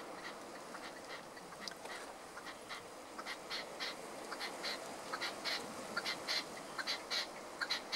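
Red-legged partridge calling: a run of short clucking notes, sparse at first, then quicker and louder from about three seconds in, at roughly three or four a second.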